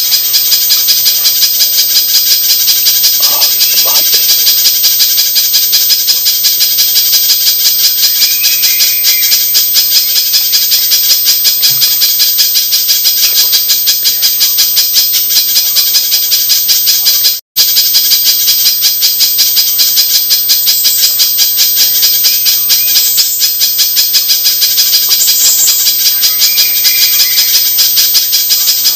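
Spiderhunter (pijantung) lure call: a rapid, continuous stream of high, sharp chipping notes, loud and unbroken except for a momentary break about two-thirds of the way through.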